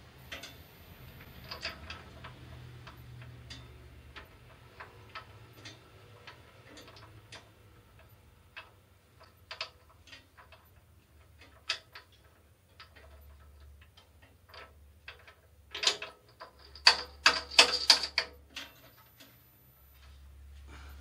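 Irregular small clicks and taps of hard objects being handled, with a quick run of louder clicks about sixteen seconds in, over a faint low hum.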